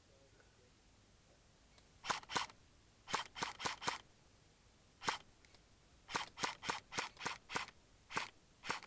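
Airsoft gun firing single shots in quick strings, about fifteen sharp cracks beginning some two seconds in.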